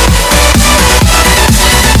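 Electronic dance music with a steady, fast beat of deep, punchy kick drums.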